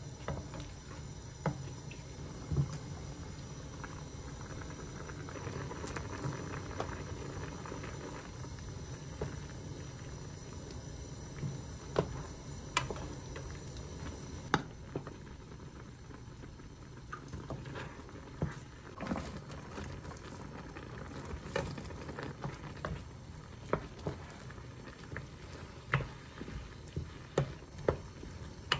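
Spicy tteokbokki broth with rice cakes and fish cakes bubbling in a frying pan while a wooden spoon stirs it, with many short knocks and clicks of the spoon and food against the pan, more frequent in the second half.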